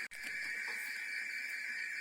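A steady, high-pitched chorus of insects chirping without a break. It cuts out for an instant right at the start.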